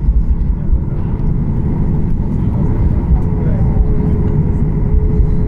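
Cabin noise of a Boeing 737 MAX 8 taxiing: a steady low rumble with a constant engine hum.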